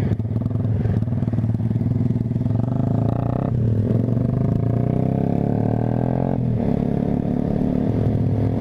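Motorcycle engine heard from the rider's seat while accelerating: its pitch climbs steadily, then drops sharply about three and a half seconds in and again about six and a half seconds in, as the rider shifts up through the gears.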